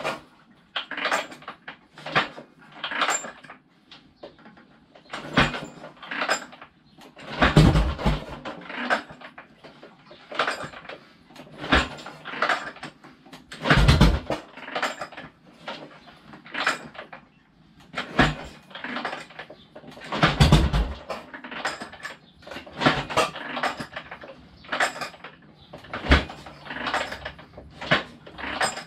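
Harley-Davidson Ironhead Sportster's cold V-twin being kick-started over and over: a string of kicks of the kick-start lever, each turning the engine over with a short mechanical clatter, about every one to two seconds, a few of them heavier and deeper.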